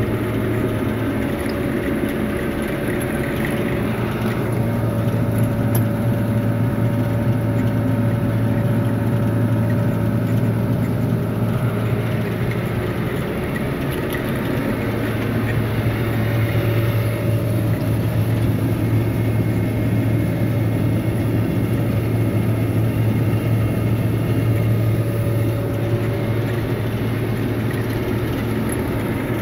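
Tractor engine running steadily, heard from inside the cab as the tractor drives across a field: an even, low drone with no change in pitch.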